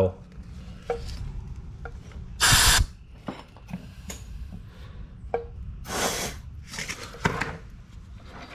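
Three short hisses of compressed air blown into a 6R80 automatic transmission to air-check a clutch, the first and loudest about two and a half seconds in. Scattered knocks and clunks come from the clutch piston applying and the aluminium case being handled.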